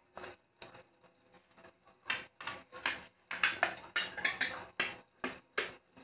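Clinks and taps of kitchen utensils against dishes: a few sharp clicks at first, then many in quick succession from about two seconds in.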